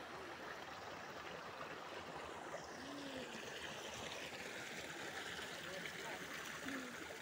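Water running steadily over rocks in a small cascade into a river pool, a faint even rush of flowing water.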